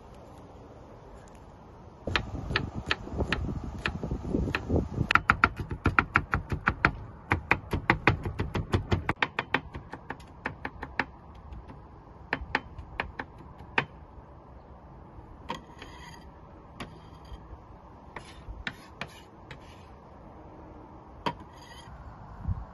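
Kitchen knife chopping rapidly on a wooden cutting board, in quick sharp taps of about five a second at its fastest. The chopping slows to scattered taps in the second half.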